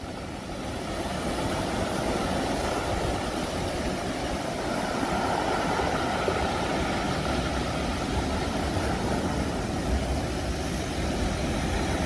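Sea surf breaking and washing over basalt rocks, a steady rush of waves with a low rumble of wind on the microphone.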